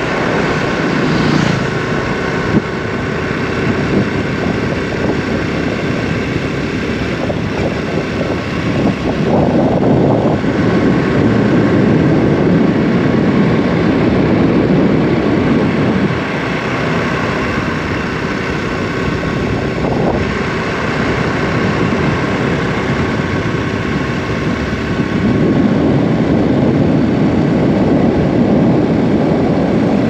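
Honda Super Cub 110 Pro's small air-cooled single-cylinder four-stroke engine running at a steady cruising speed on the move, under a continuous rush of wind and road noise that swells a little twice.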